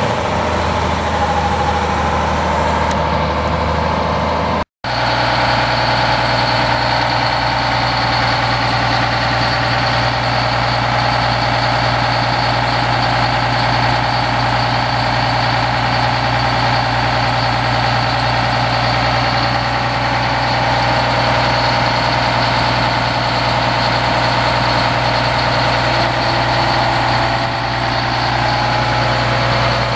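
A fire truck's Detroit Diesel 6-71TA two-stroke six-cylinder diesel engine running steadily. There is a momentary break about five seconds in, after which the hum carries on evenly.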